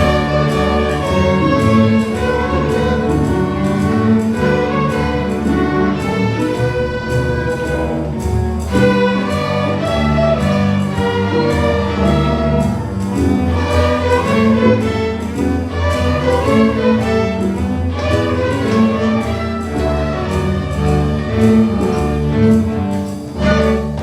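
Middle-school intermediate string orchestra of violins and other bowed strings playing together, a moving melody over sustained lower notes.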